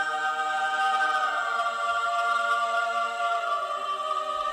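A choir singing one long, held chord.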